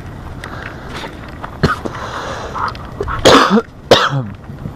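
A man coughing twice, close and loud, a little past three seconds in, each cough ending in a short falling grunt.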